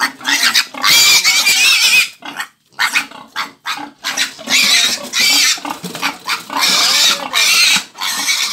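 Weaned piglet, about 29 days old, squealing loudly as it is handled and held in a bucket for weighing: a series of long, high-pitched squeals with short breaks between them.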